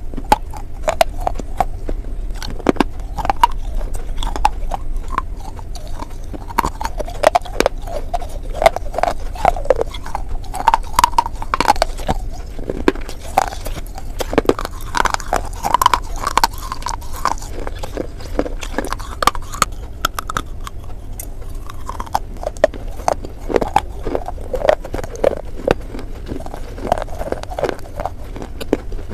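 Close-miked crunching and chewing of dry clay bars: many sharp, irregular crunches as pieces are bitten off and ground between the teeth.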